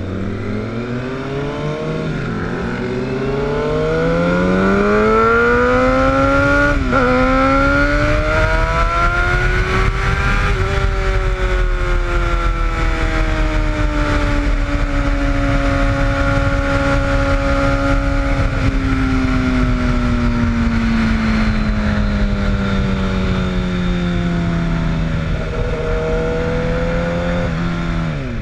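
Sport motorcycle engine accelerating, its pitch climbing with a brief dip at a gear change about seven seconds in, then settling into a cruise and slowly dropping in pitch as the bike eases off. Wind rumble on the microphone sits under it.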